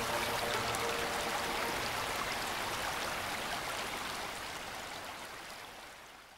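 Steady hiss of rain with scattered fine drop ticks, fading out over the last second or so. The last soft held notes of background music die away in the first couple of seconds.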